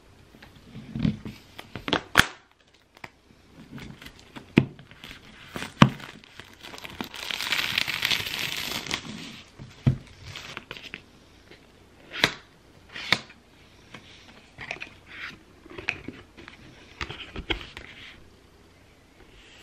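Cardboard Apple Watch box being unwrapped by hand: a series of sharp taps and knocks as the box is handled and set on the table, and a longer tearing, crinkling sound around the middle as the paper wrap is pulled off by its tear tabs.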